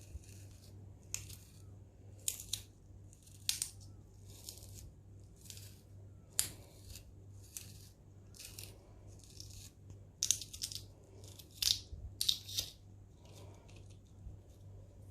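Kitchen knife cutting thin slices into a raw potato skewered on a stick, a string of short crisp cuts about once a second, bunching closer together past the middle. A steady low hum runs beneath.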